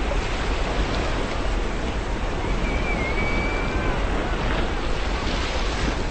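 Sea waves washing in a steady rush, with one thin gull call a little before halfway, lasting about a second. A wave swells brighter near the end.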